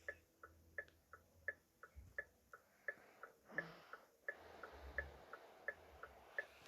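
Car hazard-light flasher ticking, an alternating tick and tock as the lamps switch on and off, a click about every third of a second.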